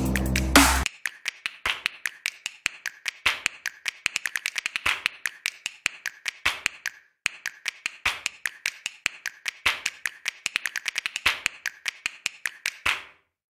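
Dubstep-style electronic music: the bass cuts out under a second in, leaving a long breakdown of fast, sparse clicking and tapping percussion, which stops just before the end.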